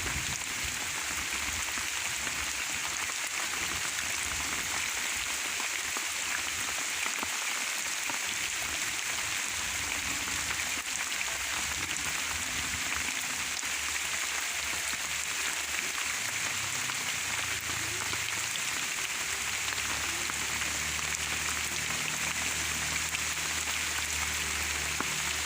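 Steady rain falling, an even continuous hiss. About halfway through, a low steady hum comes in underneath it.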